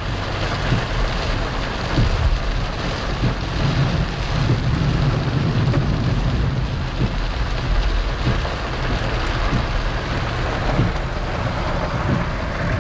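A car driving through heavy rain: a steady noise of rain on the vehicle and tyres on the wet road, over a low road rumble.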